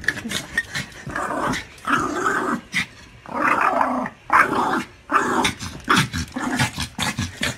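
A small dog growling in repeated bouts, each up to about a second long, broken by short sharp yaps.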